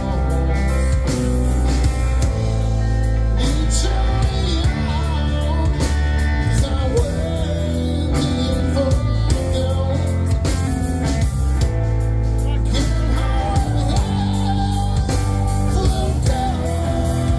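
Live rock band playing: two electric guitars, electric bass and drum kit, with a male vocalist singing over them.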